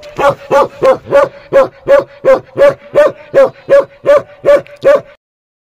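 Bakarwal shepherd dog barking over and over in an even rhythm, about three barks a second, stopping suddenly near the end.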